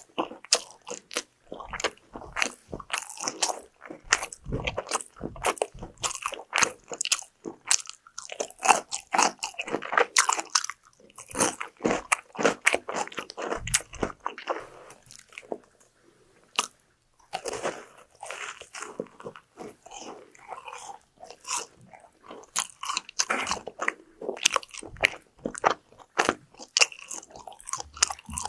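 Close-miked eating of crispy fried food: crunchy bites and chewing in quick succession, with a short lull just past halfway.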